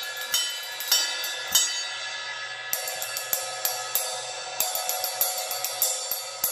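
Second-generation Zildjian Amir II 20-inch ride cymbal, a heavy, thick ride, struck repeatedly, its overtones ringing on between strokes. A few strokes come about half a second apart, then from about three seconds in a quicker run of hits follows.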